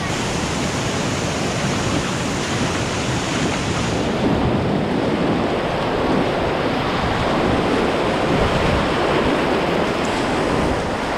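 Whitewater rapids rushing steadily around an inflatable kayak as it runs the river, the churning water close to the microphone, with some buffeting on it.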